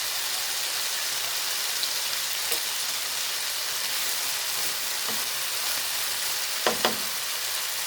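Bitter gourd and chicken sizzling steadily in a frying pan, with two quick knocks close together near the end.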